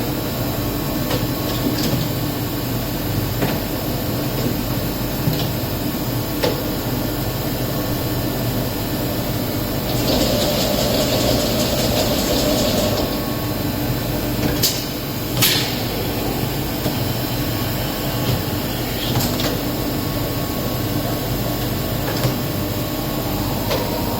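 Wotan CNC horizontal boring machine running its chain-type automatic tool changer: a steady machine hum with scattered clicks and clunks, a hiss lasting about three seconds near the middle, and two sharp knocks soon after.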